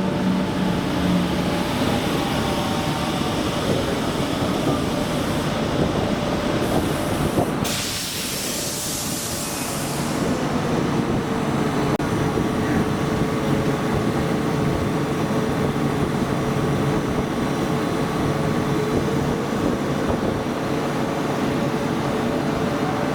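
CP series 2300/2400 suburban electric multiple unit running steadily at the platform. About seven and a half seconds in comes a sharp burst of air hiss lasting about two seconds.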